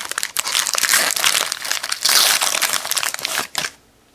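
A 2017-18 Donruss basketball card pack's plastic wrapper crinkling and crumpling in the hands as the pack is opened and the cards pulled out; the crinkling stops abruptly about three and a half seconds in.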